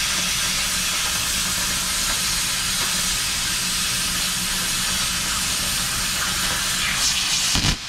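Oxy-fuel cutting torch cutting steel plate: a steady, loud hiss of the flame and cutting-oxygen jet blowing through the metal. It surges briefly in the last second and then cuts off abruptly.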